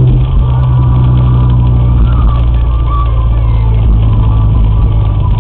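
Car cabin noise while driving at about 40 km/h on a wet road: a steady, loud low drone of engine and road noise, heard through a dashcam's built-in microphone.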